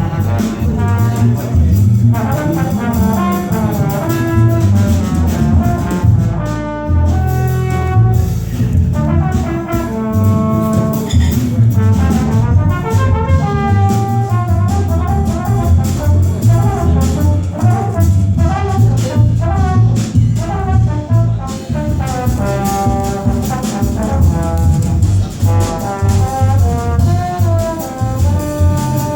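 Small jazz band playing live: a melody line, likely from a horn, moves over a steady bass and rhythm section.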